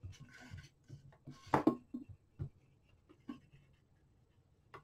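Scattered small clicks and short scratchy rubbing noises from hands handling and cleaning the plastic-and-circuit-board keyboard assembly of an HP 48SX calculator, with one louder rustle about one and a half seconds in.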